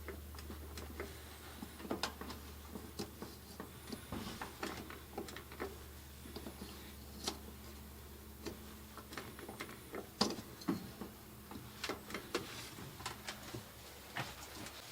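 Irregular light clicks and taps, as of small parts being handled, over a faint low hum that weakens about a second in.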